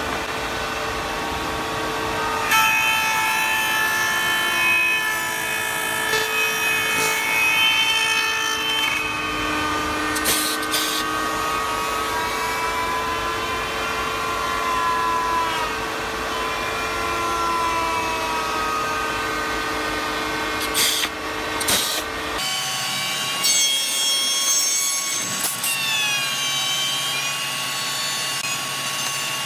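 Woodworking power machinery running: a steady machine hum with a whine that rises and falls in pitch as the cutter or spindle takes load. About three quarters of the way through the sound changes abruptly, the low rumble dropping out and leaving a steadier high whine.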